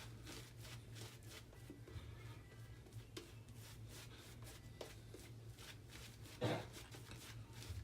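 Faint, irregular scraping and crackling of a Merkur 20C double-edge safety razor with a Kai blade cutting through two days of lathered stubble, over a steady low hum. A short, louder sound comes about six and a half seconds in.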